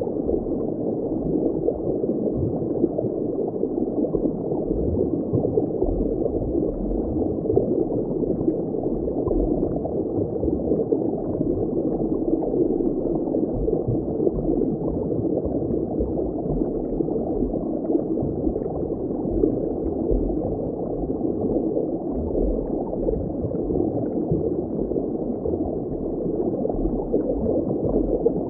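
Steady ambient water noise: a dull, muffled bubbling rush with nothing high in it and a flickering low rumble underneath, like underwater ambience.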